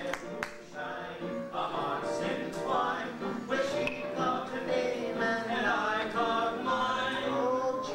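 Several voices singing a song together live, in harmony.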